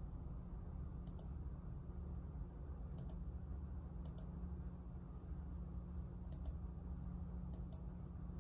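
Computer mouse clicking: short sharp clicks in pairs, about every one to two seconds, over a steady low hum.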